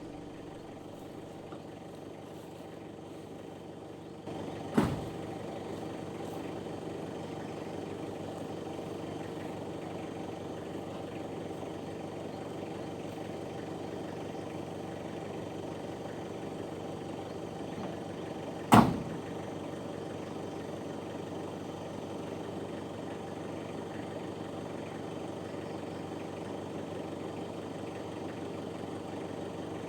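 A vehicle engine running steadily, with two sharp knocks, one about five seconds in and a louder one about two-thirds of the way through.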